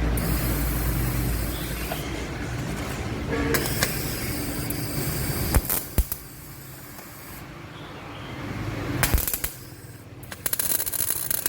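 Gasless flux-core MIG welder arc crackling on thin steel in several short runs with pauses between, and a few sharp clicks.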